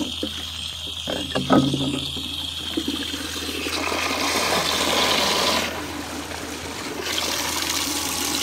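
Water rushing out of a 1920s Royal Doulton cast-iron cistern as it flushes through its bell siphon, which the owner says is too short to flush efficiently and has pinholes. The rush builds a couple of seconds in, eases off briefly and then picks up again.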